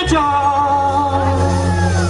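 Live band playing a slow Bollywood-style opening: a steady low bass note under a held melody line that glides in pitch.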